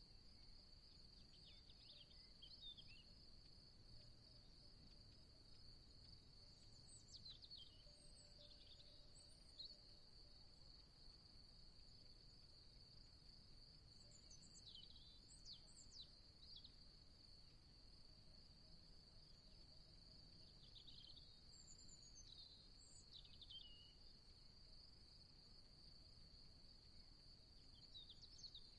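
Faint outdoor ambience: a steady high-pitched insect chorus, like crickets trilling, with small birds chirping in short bursts every few seconds over a low rumble.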